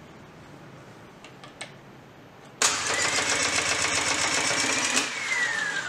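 Hyundai HAT16 air circuit breaker's spring-charging motor starting with a sharp clack about two and a half seconds in and running with a whine for a couple of seconds, recharging the closing spring. The power then cuts off and the whine falls away as the motor spins down.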